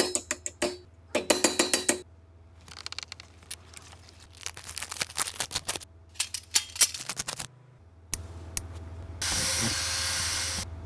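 Rapid clicking and rattling, as of objects being handled, in several short bursts, then a steady hiss lasting about a second and a half near the end.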